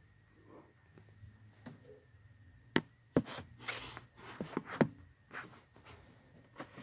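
Handling noise from the recording phone: a few sharp knocks and bursts of rubbing and rustling as the phone is moved and covered.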